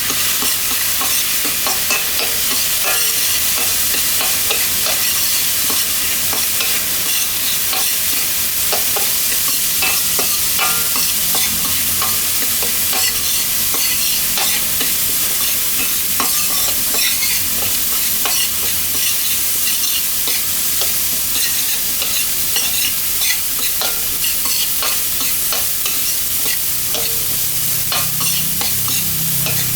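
Food sizzling as it is stir-fried in a hot pan, with frequent irregular clicks and scrapes of a spatula against the pan; most likely the crab fried rice being tossed.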